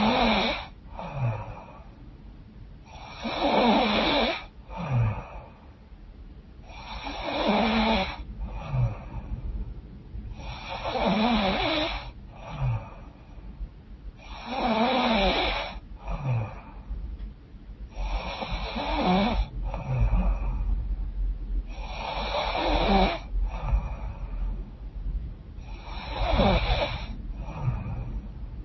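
A woman snoring in her sleep through a stuffed-up, runny nose. About eight loud snores come at a steady pace, roughly one every four seconds, each followed by a shorter, softer breath.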